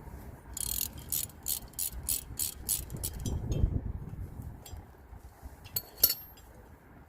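Ratchet wrench with a Torx bit clicking in a quick even run, about three or four clicks a second, as it turns out a Torx bolt on a car's brake assembly. A few more clicks and a single loud knock come about six seconds in.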